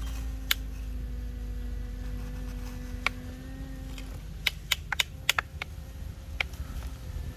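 Radio-controlled model excavator working: a steady mechanical hum that stops about four seconds in, over a low rumble, with irregular sharp clicks and clacks, more frequent in the second half.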